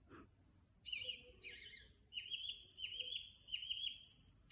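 A bird singing: short, high chirping phrases, with a run of quick repeated notes from about halfway through.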